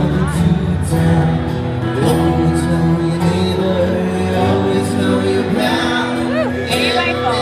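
Live acoustic band playing: strummed acoustic guitar and a cajon, with a man singing along.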